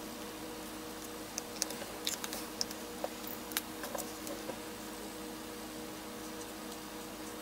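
Art markers and supplies being handled on a worktable: a scatter of light clicks and taps for about three seconds, over a steady low hum.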